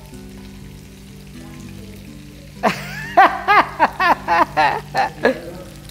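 A woman laughing in a quick run of loud bursts, starting about halfway through, over soft background music and the steady sizzle of a flour-dredged milanesa cutlet frying in a skillet.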